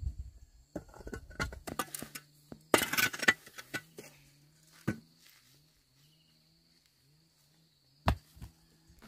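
Scattered knocks and clicks, with a short clattering burst about three seconds in and single sharp knocks near five and eight seconds, over a faint steady low hum and a high, thin steady tone.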